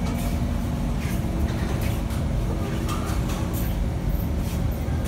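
Steady low rumble and hum inside the car of a Kawasaki Heavy Industries C151 metro train standing at a station with its doors open, with a few faint clicks.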